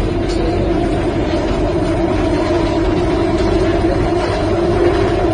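Subway train running, heard from inside the passenger car: a loud, steady rumbling drone with a constant hum.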